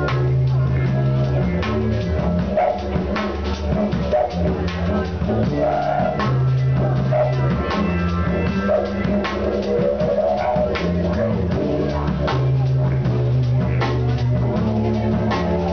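Didgeridoo droning with a shifting, wah-like tone, played over live band music with a drum kit and a bass line that changes note every second or two.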